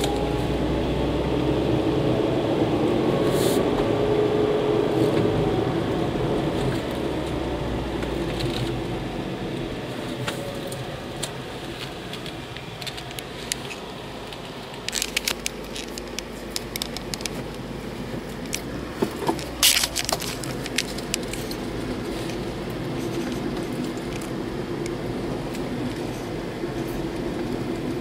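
Car engine and road noise heard from inside the moving car's cabin, the engine note rising and then falling over the first several seconds before settling lower. A scattering of sharp clicks comes about halfway through.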